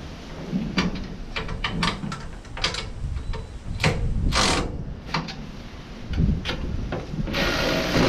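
Metal clicks and knocks from hands working the mounting bolts of a truck bench seat, then near the end a cordless electric ratchet runs for just under a second.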